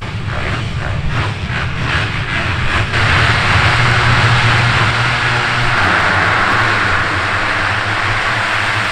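Motocross bike engines running at high revs, a loud steady drone that grows fuller about three seconds in.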